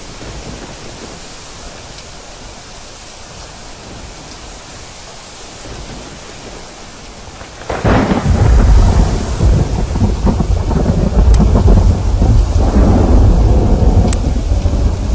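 Steady rain, then about halfway through a thunderclap breaks in suddenly and rolls on as a loud, deep rumble over the rain.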